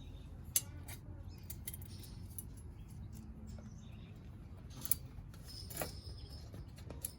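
A few light clicks and clinks over a steady low background rumble.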